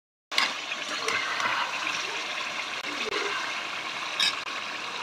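Chicken pieces and potatoes sizzling and bubbling in hot oil and gravy in a cooking pot: a steady hiss that starts a moment in, with one short clink of the metal spoon about four seconds in.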